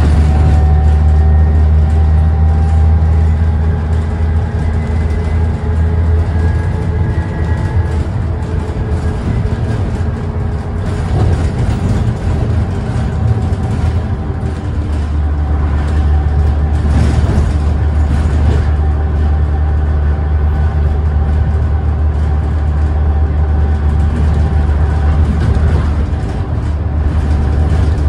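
A Stagecoach bus's diesel engine running on the road, heard from inside the passenger saloon, with road and tyre noise. It is a steady low drone that eases off about ten seconds in and again around fourteen seconds, as the bus slows with a stop requested.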